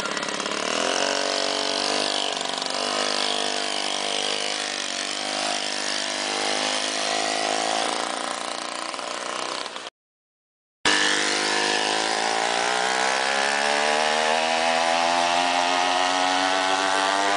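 Small engine of a monowheel running: it revs up at the start and holds a steady note, drops out for about a second near the middle, then comes back and climbs steadily in pitch as it speeds up.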